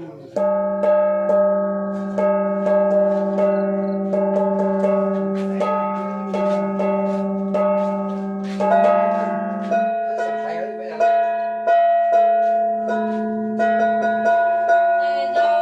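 A plucked string instrument playing a melody: a steady stream of plucked notes ringing over a sustained low tone, with some notes bent and wavering in pitch in the second half.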